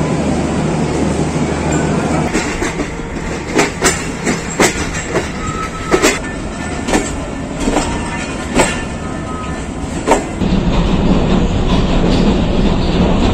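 Passenger train coach running on the rails, heard from inside the carriage: a steady rumble with sharp wheel clicks over rail joints every half second to a second. It settles into a heavier low rumble from about ten seconds in.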